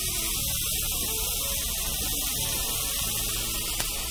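Bife ancho (ribeye) steak searing in a little olive oil in a very hot frying pan: a steady sizzle as the first side browns.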